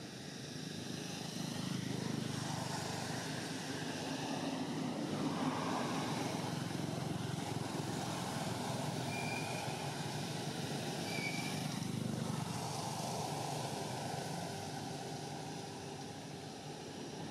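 Low steady rumble of a distant motor vehicle, swelling over the first couple of seconds and easing off near the end, with two short high chirps about halfway through.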